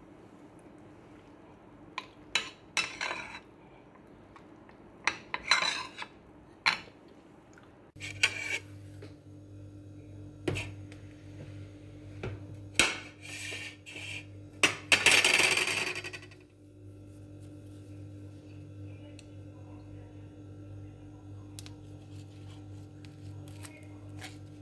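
A metal spoon clinking and scraping on a ceramic plate, in several short strokes over the first few seconds. After a sudden change about eight seconds in, a steady low hum runs under scattered small knocks, with one louder rustling burst lasting about a second and a half about fifteen seconds in.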